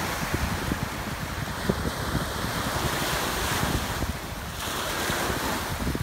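Sea waves washing onto the shore, with wind rumbling on the microphone.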